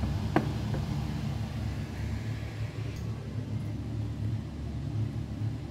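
Steady low rumble, like a fan or distant engine hum, with one short click about half a second in.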